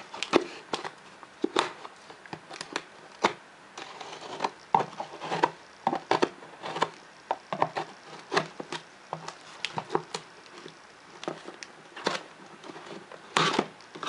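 Knife cutting through the packing tape on a cardboard box: irregular scrapes, clicks and taps of the blade and hands on the cardboard, with a louder, longer rasp near the end.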